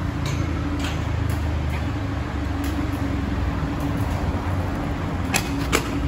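Street traffic ambience: a steady low rumble of vehicles with a continuous engine hum, and a few light clicks scattered through it, two of them close together near the end.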